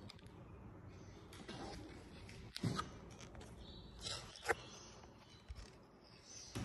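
Quiet room with a few soft knocks from footsteps on a timber floor, the clearest about two and a half and four and a half seconds in.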